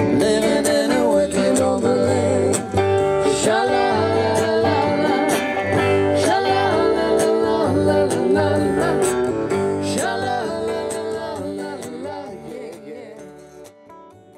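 Live country band playing, with electric and acoustic guitars and an upright double bass. The music fades out over the last few seconds.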